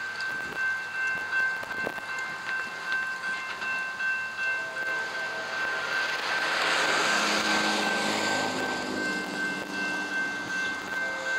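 Railroad crossing bells ring steadily, with a car's tyre noise swelling and fading around the middle. From about four seconds in, the approaching Amtrak P42DC locomotive's five-chime Nathan K5LA horn sounds faintly under the bells.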